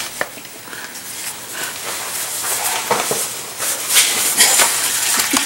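Used engine oil draining from the 2007 Honda Pilot's oil pan in a thin stream into a drain pan: a steady splashing hiss that grows louder about halfway through, with a shop towel rubbing and a few small clicks.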